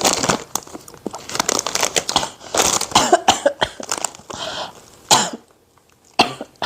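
A woman coughing and clearing her throat over and over, then two more single coughs near the end. The coughing is a reaction to the heat of chili-spiced plantain chips.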